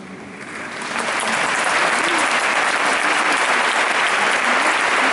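Audience applauding, the clapping swelling in over about the first second and then holding steady.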